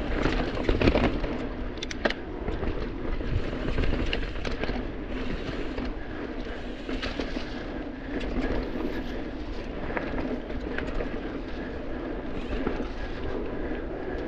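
Mountain bike rolling fast over a dirt forest trail: continuous tyre and ride noise with frequent sharp rattles and knocks from the bike over the rough ground.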